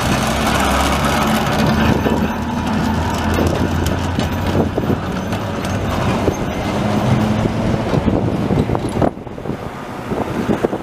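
BMEŽ heritage tram No. 31 with its trailer car running past on street rails: a steady motor hum with the wheels clicking over the track, growing quieter about nine seconds in as it moves away.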